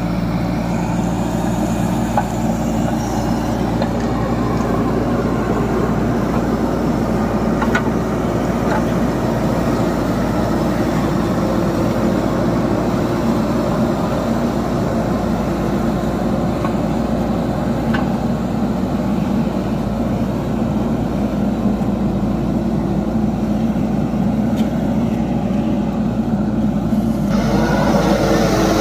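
JCB backhoe loader's diesel engine running steadily at a constant speed, growing a little louder and brighter near the end.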